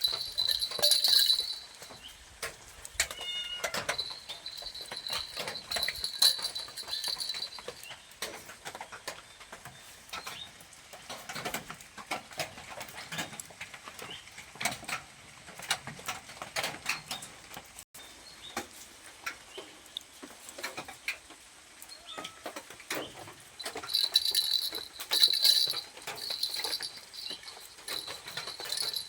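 A cat moving about with a small bell jingling near the start and again near the end, among irregular soft clicks and scratches; no clear meow.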